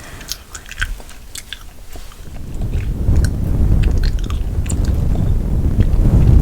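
Close-up gum chewing with small wet mouth clicks, then about two seconds in a low rumbling rub on the microphone builds up and grows louder, drowning the chewing.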